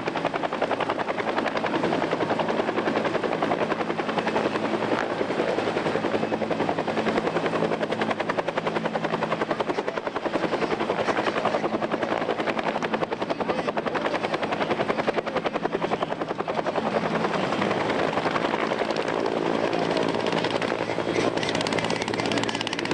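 Helicopter flying close by, its rotor beating rapidly and steadily.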